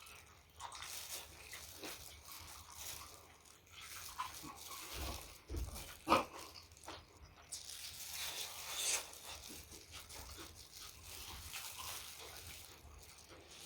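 Close-miked chewing and wet mouth sounds of a person eating, irregular smacks and clicks, with one sharper, louder click about six seconds in.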